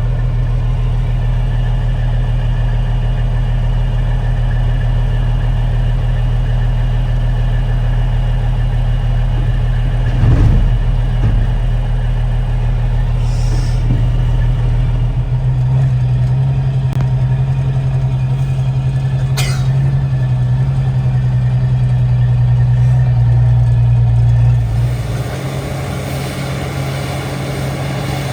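Semi truck's diesel engine running steadily, its note stepping up about halfway through and dropping back near the end. There is a knock about ten seconds in and a short air hiss a few seconds later.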